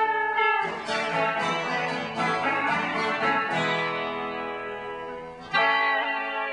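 Guitar playing the closing instrumental bars of a folk song, with plucked notes and a final chord struck about five and a half seconds in and left ringing.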